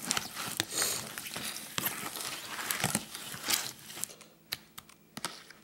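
Linguine in tomato sauce being stirred in a plastic container with a utensil: wet squishing and scraping with small clicks against the container's sides. It goes on steadily for about four seconds, then thins out to a few scattered clicks.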